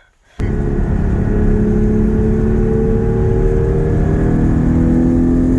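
Porsche Cayman GT4 (981)'s 3.8-litre flat-six engine running under load as the car drives, its pitch rising slowly, over low road rumble. It cuts in suddenly about half a second in.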